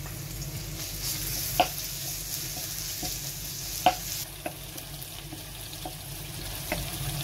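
Crushed garlic, fennel seeds and whole spices sizzling in hot oil in a pan, stirred with a wooden spatula. The spatula knocks sharply against the pan three times.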